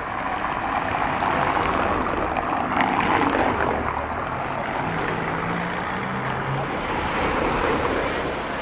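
Busy city street noise: a steady wash of traffic and crowd, swelling over the first few seconds and again near the end, with a low engine hum in the middle.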